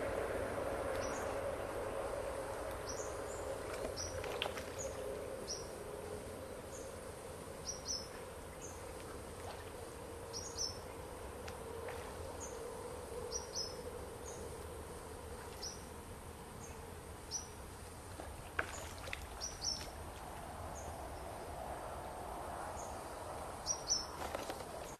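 Outdoor rural ambience: short, high chirps that come singly or in quick pairs at irregular intervals, over a steady low background hum.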